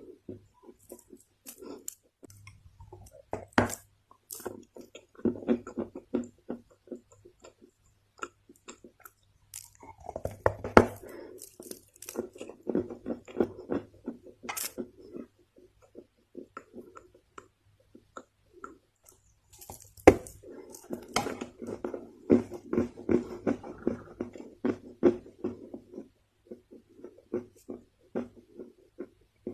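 Soft, dry chunks of Chinese loess (clay) being bitten and chewed close to the microphone: crisp crackling crunches in three dense bouts with sparser clicks in the pauses between.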